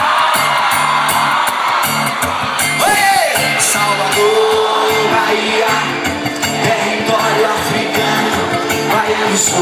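Live band playing an upbeat song with drums and a regular beat, a singer holding long notes over it, and whoops from the crowd.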